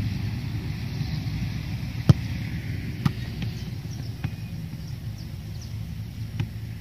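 A football kicked with a sharp thud about two seconds in, and another lighter strike about a second later, over a steady low rumble.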